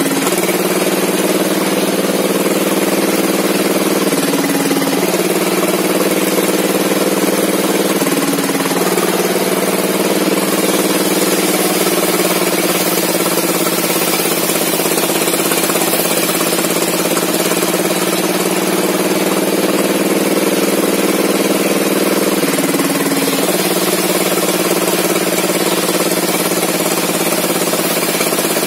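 Small engine of a log sawmill running steadily. Its pitch dips briefly three times, about 4, 8 and 23 seconds in.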